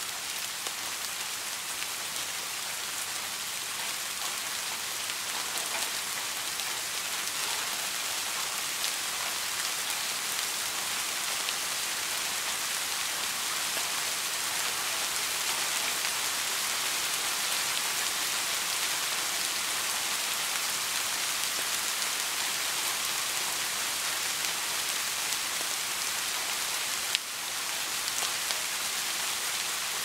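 Water drops from a rain fountain falling onto a pool's surface: a dense, steady splashing patter, with a single sharp click about three seconds before the end.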